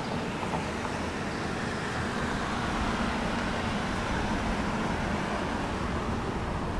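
A road vehicle going by: engine hum and tyre noise swell to a peak in the middle, then ease off, over steady outdoor noise.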